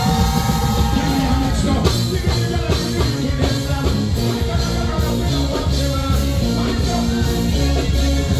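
Live band playing a dancehall rhythm over the stage PA, with drums, bass and guitar, and singing over it.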